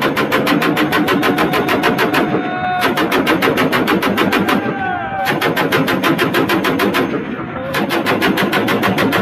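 Belt-fed machine gun on a bipod firing long bursts of automatic fire, about ten shots a second. The bursts run about two seconds each, with three short pauses between them.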